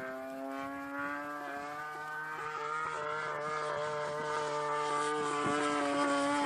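Christen Eagle aerobatic biplane's engine and propeller running with a steady drone, getting gradually louder.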